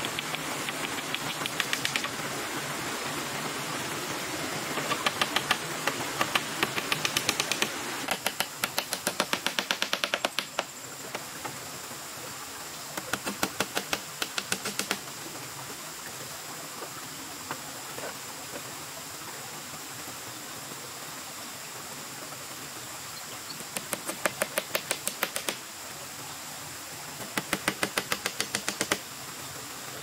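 Hammer driving nails into split-bamboo roof slats, in quick runs of sharp taps about four a second, six runs in all, over a steady hiss.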